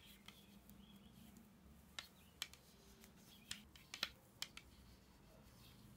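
Faint, irregular clicks of wooden knitting needles tapping against each other while stitches are bound off, a handful of them bunched between about two and five seconds in.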